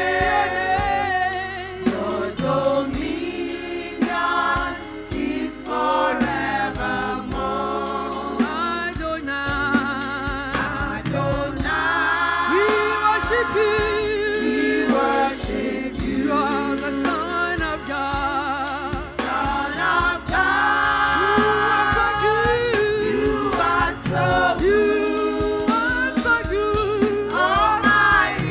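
Gospel worship music: a choir of voices singing with vibrato over instruments, with drums keeping a steady beat.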